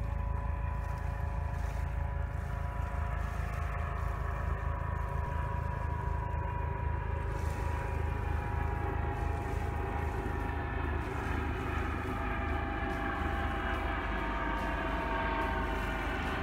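US Coast Guard helicopter flying low overhead: a steady low rotor throb with a turbine whine above it. The whine grows stronger near the end as the helicopter draws closer.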